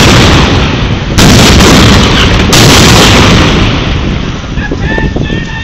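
Ship's cannons firing blank charges: the tail of one blast, then two more heavy booms, about a second in and halfway through. Each is loud enough to overload the recording, and the rumble fades away over the last couple of seconds.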